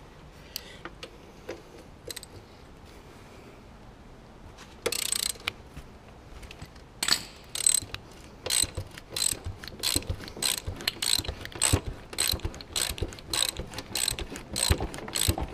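Small hand ratchet wrench clicking in quick, even strokes, about three a second, from about seven seconds in, as a bolt is wound out. A brief scrape about five seconds in.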